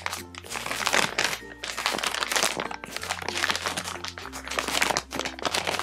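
Plastic packaging bag crinkling and crackling in irregular bursts as a packaged squishy toy is handled and turned over, over background music with a steady bass line.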